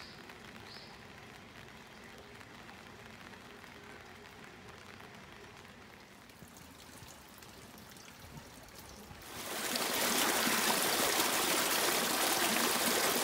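Water running through a stone channel: faint at first, then about nine seconds in it comes in loud, a dense, steady rushing hiss.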